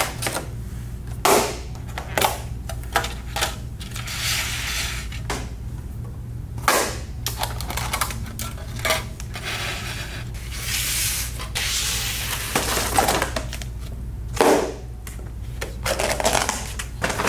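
Plastic takeout containers being unpacked and set down on a table: a series of sharp knocks and clicks as containers and their clear plastic lids touch the tabletop, with rustling of the packaging and paper bag in between.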